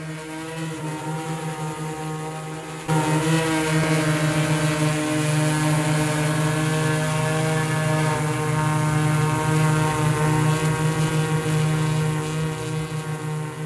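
Multirotor drone's propellers humming steadily in flight: one buzzing tone that wavers rapidly, getting louder about three seconds in.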